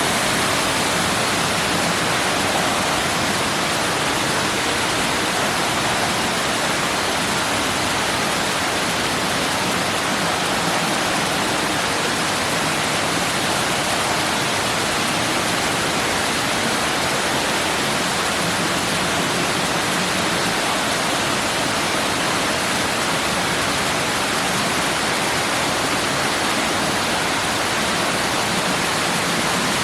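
Indoor artificial waterfall: water dropping and rushing into a pond in a steady, loud, unbroken roar.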